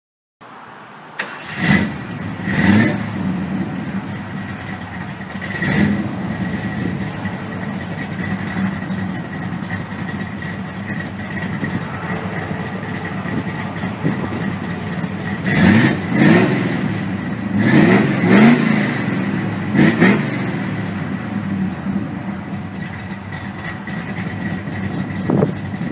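Car engine idling with a series of short throttle revs, each a quick rise and fall in pitch; the revs come in a cluster in the second half.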